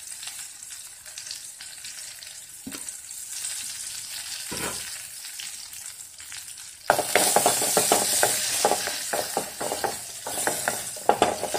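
Shallots, dried red chillies, mustard seeds and fresh curry leaves sizzling in hot coconut oil in an aluminium kadai. About seven seconds in it turns suddenly louder as a spatula starts stirring, with sharp crackles and scraping against the pan.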